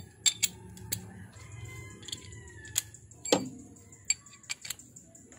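Metal hand tools clinking and clicking against metal parts: about eight sharp metallic clicks at irregular intervals, the loudest one ringing briefly about three seconds in.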